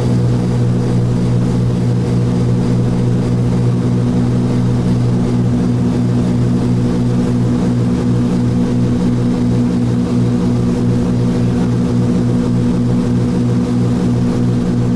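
Cessna T303 Crusader's twin piston engines and propellers heard from inside the cabin during the climb after takeoff: a loud, steady drone with a regular throb.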